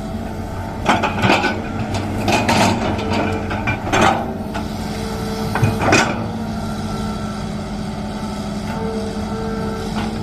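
Hydraulic excavator's diesel engine running steadily, with several short, loud scrapes and knocks from the digging at about one, two and a half, four and six seconds in.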